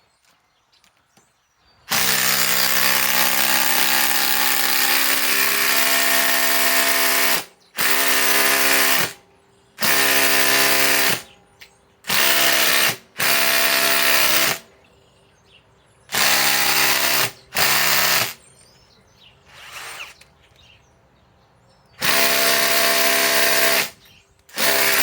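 Ryobi 2200 in-lb cordless impact driver hammering a 10-inch TimberLOK screw into wood, in bursts as the trigger is pulled and released: a first long burst of about five seconds, then several shorter bursts with pauses. The wood is tough, and the screw goes in slowly.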